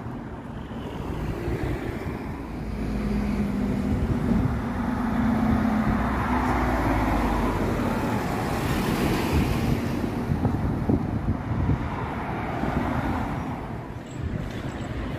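City street traffic: motor vehicles running and passing close by. A steady engine hum rises and holds for a few seconds in the middle, and the traffic noise swells and then eases off.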